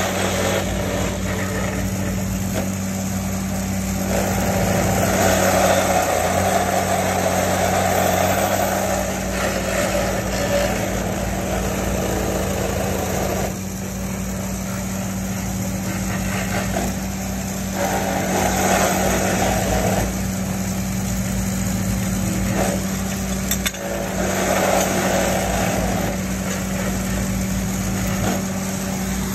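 Engine of a rail tamping machine running steadily, with several stretches of a few seconds each of louder vibrating noise as the tamping feet vibrate down into the ballast and squeeze rock up under the ties.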